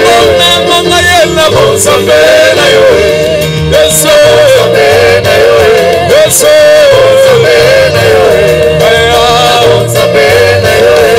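Live gospel worship music: several singers holding long, wavering notes in harmony over keyboard, bass and drums, with occasional cymbal crashes.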